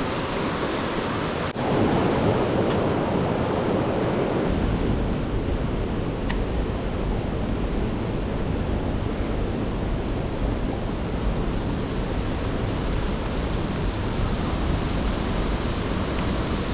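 Steady rush of flowing river water over rocks, an even hiss without pitch. It shifts abruptly about a second and a half in and takes on a deeper rumble a few seconds later.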